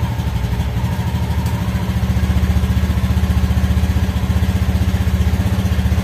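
Honda BeAT scooter's small single-cylinder engine, just started, idling steadily with an even, rapid exhaust pulse.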